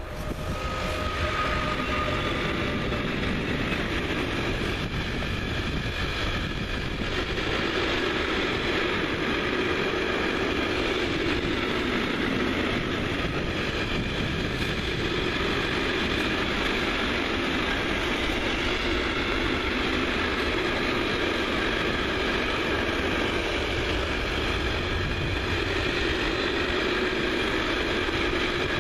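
Container freight train passing close by at speed behind a Siemens Taurus electric locomotive: a steady, unbroken rumble and rattle of the wagons' wheels on the rails.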